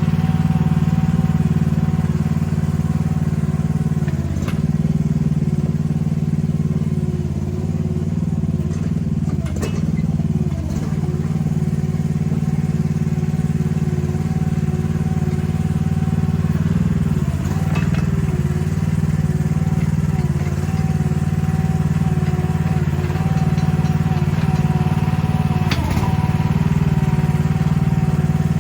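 Mini excavator engine running steadily with a steady whine over it, its pitch dipping briefly several times as it takes load. A few sharp knocks come through, around four, ten and twenty-six seconds in.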